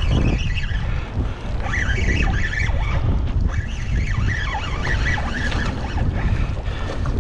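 Strong wind buffeting the microphone over choppy water lapping around a small boat.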